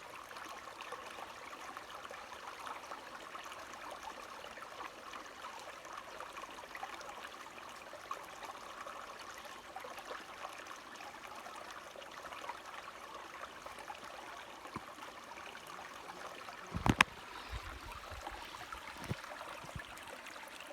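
A small stream trickling steadily. A sharp knock is heard about three-quarters of the way in, followed by a few softer thumps.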